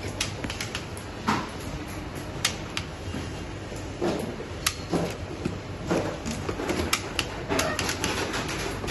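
Irregular sharp plastic clicks and snaps from RCCBs (residual current circuit breakers) being seated in a test fixture, switched on and tripped during residual-current sensitivity testing.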